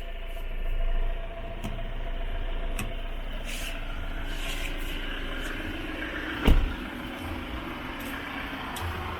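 Vehicle running with a steady low rumble, a few faint clicks, and one sharp thump about six and a half seconds in.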